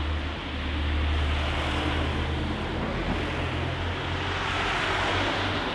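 Steady city street traffic noise: a continuous low rumble of passing vehicles under a broad hiss.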